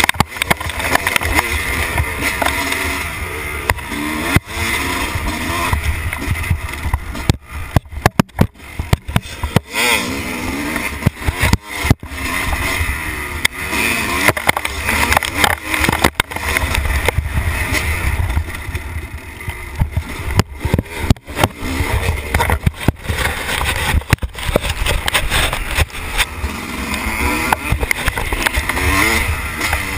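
Dirt bike engine running under riding load, heard through a GoPro on the bike's handlebars; its sound keeps rising and falling and drops out sharply several times.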